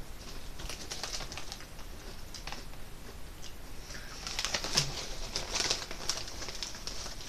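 A person chewing a mouthful of crunchy potato chips close to the microphone: a run of small crackling crunches, busiest about four to six seconds in.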